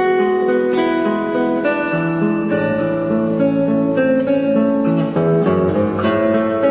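Background music: acoustic guitar, plucked and strummed notes ringing on over one another.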